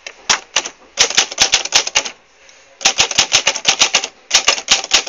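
Corona Zephyr portable manual typewriter being typed on: quick runs of sharp keystrokes, several a second, with short pauses between the runs.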